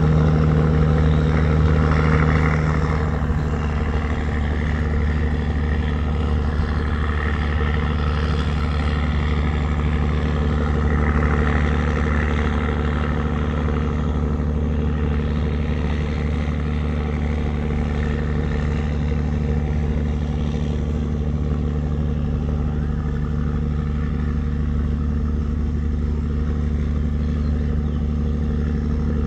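Wooden river tugboat's diesel engine running steadily, a deep even drone, a little louder for the first three seconds.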